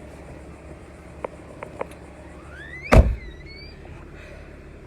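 Steady low hum of a truck's running engine heard from inside, with a few light clicks and short high squeaks, and one loud thump about three seconds in.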